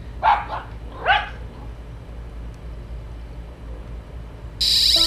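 A dog barks twice in the first second or so over a low steady rumble. A loud burst of hiss comes near the end.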